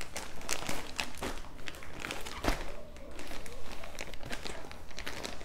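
Clear plastic packaging crinkling and rustling as hands turn over and handle the wrapped, folded fabric bag inside, with one louder bump about two and a half seconds in.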